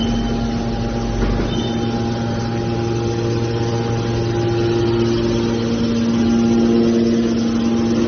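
Hydraulic power unit of a scrap metal baler running: a steady hum of the motor and pump, with some of its tones growing stronger about three seconds in.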